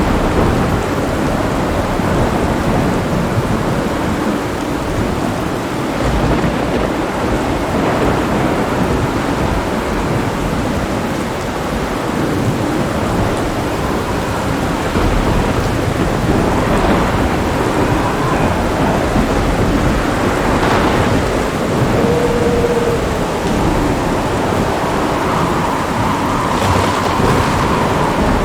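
Heavy rain falling steadily through a thunderstorm, with thunder rolling and rumbling throughout.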